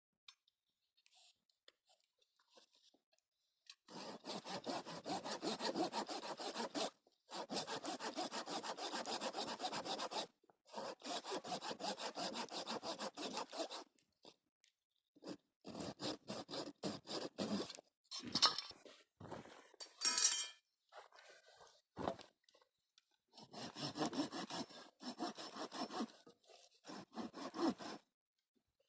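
Hand saw cutting through firewood in three long runs of quick back-and-forth strokes, then scattered short scraping and knocking sounds, and another run of sawing near the end.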